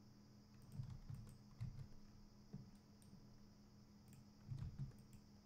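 Faint computer keyboard and mouse clicks, a few scattered presses, over a steady low hum.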